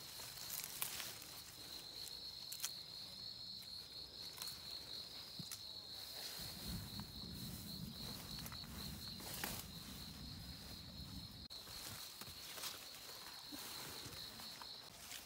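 An insect trills steadily in a high, rapidly pulsing tone that starts about a second and a half in and stops just before the end, over scattered light clicks. A low rumble comes in about six seconds in and stops about five seconds later.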